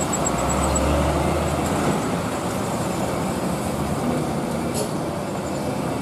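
Heavy cargo trucks and cars running slowly down a steep mountain road: a steady low engine drone over road noise that eases about two seconds in, with a brief high hiss near the end.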